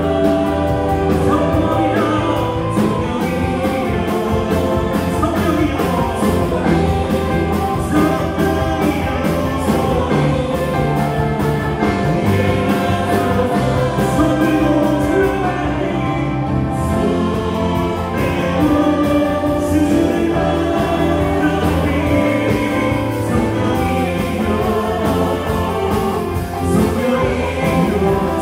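Live praise band playing a worship song, with electric guitar, bass guitar, Korg Triton and Yamaha Montage keyboards and a drum kit keeping a steady beat under singing voices.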